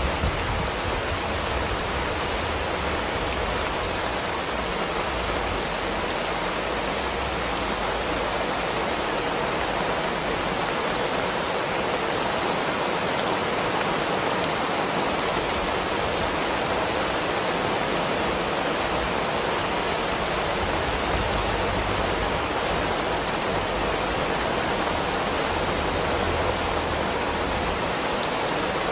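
Rain falling steadily, an even unbroken hiss of drops.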